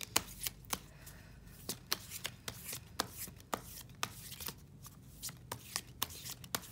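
Deck of cards being shuffled in the hands: a run of quick, crisp card snaps and slides at an uneven pace, several a second.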